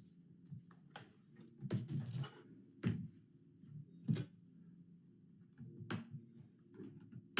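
Short plastic clicks and taps, about half a dozen spread out, as a laptop's screen bezel is pressed back onto the display lid and handled.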